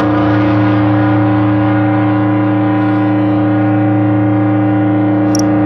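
Buchla and Eurorack modular synthesizers holding a dense, steady drone of many stacked sustained tones, with a short high tick near the end.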